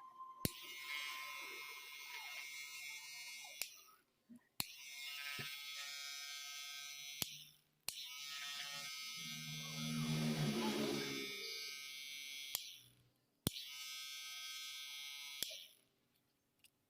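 Electric hair trimmer switched on and off four times, each run a steady buzz that starts and stops with a sharp click of the switch. During the third run it grows louder and deeper for a couple of seconds.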